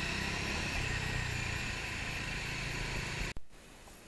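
Motorcycle engine running steadily, cutting off abruptly about three and a half seconds in and leaving only a quiet background.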